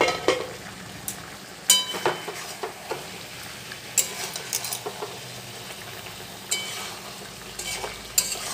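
A spatula stirring chicken pieces in masala in an aluminium kadai: irregular scrapes and knocks against the pan, a few of which make the metal ring briefly, over a light sizzle from the hot pan.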